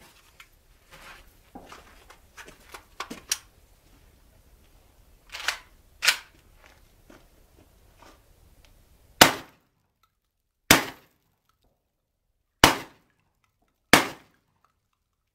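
JTS AK-style semi-automatic 12-gauge shotgun firing four loud shots, spaced about one and a half to two seconds apart, in the second half. Before them come scattered clicks and two sharper clacks from the gun being handled and readied.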